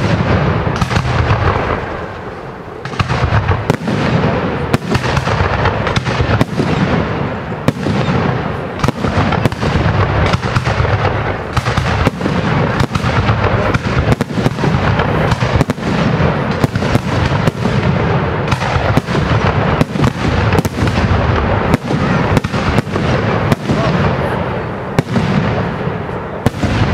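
Fireworks display: aerial shells bursting in a rapid, continuous barrage, with sharp bangs several times a second over a steady rumble of overlapping reports and their echoes.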